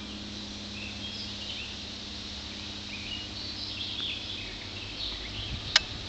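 Small birds chirping now and then over a steady hiss and a low hum, with one sharp click near the end.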